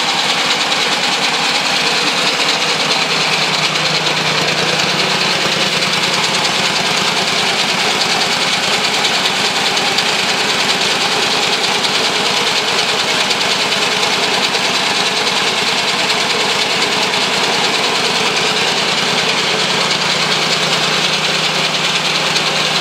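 Homemade three-cylinder engine built from Briggs & Stratton single-cylinder engines coupled by a chain, running steadily and sounding much like a three-cylinder.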